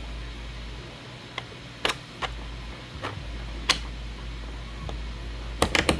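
Sharp clicks and taps of 3D-printed plastic hinge parts and pins being handled and pushed into place: a few scattered single clicks, then a quick run of clicks near the end.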